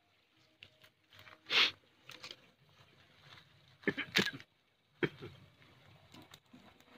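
Open wood fire crackling, with a few scattered pops and snaps, the sharpest clustered about four seconds in, between quiet stretches.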